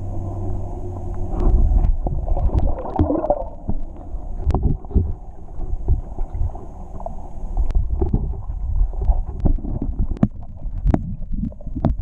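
Muffled underwater sound from a camera submerged in a swimming pool: water sloshing and gurgling around it, with many irregular knocks and thumps as it is moved through the water. A steady low hum is heard in the first second or so.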